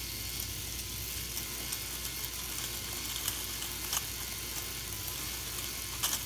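Motor-driven lift chain of a K'NEX roller coaster running: a steady whirring rattle with a few sharp clicks.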